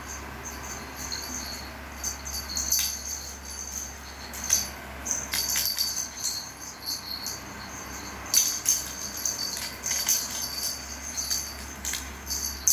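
A small jingle-bell toy rattling and jingling in irregular bursts as a cat bats it about, busier in the second half.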